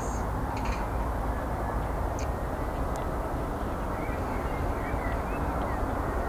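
Airbus A350-900's Rolls-Royce Trent XWB engines on final approach: a steady jet rumble and hiss. A few faint bird chirps sound over it.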